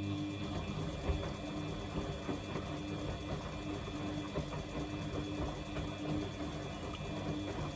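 Samsung washing machine running, its drum motor turning with a steady hum and a pulsing tone.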